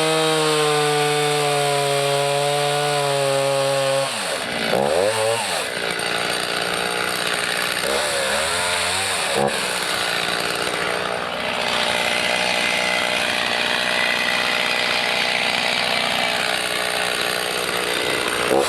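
Two-stroke chainsaw revved up and held at high speed for about four seconds, then dropping back and blipped a few more times. From about halfway it runs with a rougher, noisier sound, as of the chain cutting through wood, and revs again near the end.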